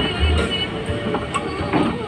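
Music with a deep bass beat and a melody.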